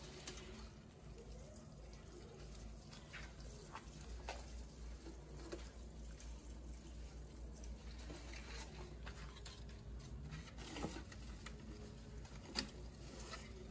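Faint patter of water poured from a plastic watering can onto potted ferns, with a few soft clicks.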